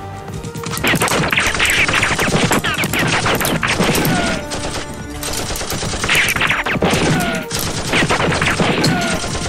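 Rapid gunfire sound effects: a dense, continuous barrage of shots, with a few short falling tones mixed in.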